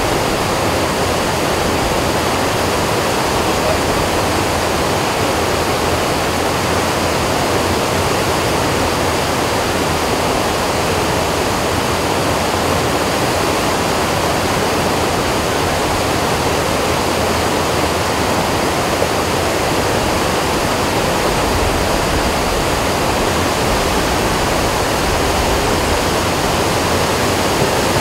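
Steady rush of a fast, muddy river in flood, swollen by torrential rain.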